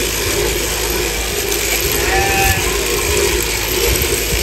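Sheep-shearing machine running steadily, its handpiece on a flexible drive shaft clipping the fleece off a sheep. A sheep bleats once briefly about two seconds in.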